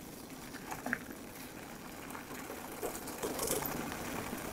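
E-mountain bike being ridden under motor assist: a steady mechanical whir from its Bosch mid-drive motor and drivetrain, with tyre noise over a leaf-strewn path. A few brief hissy rustles come about three and a half seconds in.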